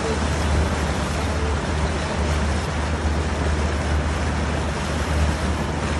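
Boat engine running steadily with a low drone, under the rush of wind and water past the moving boat.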